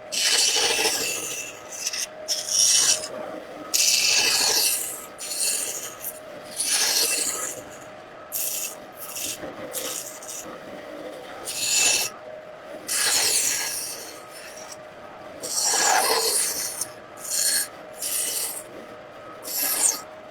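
A hand tool scraping and cutting into wood in repeated irregular strokes, each about a second long, with short pauses between them, like carving a woodblock.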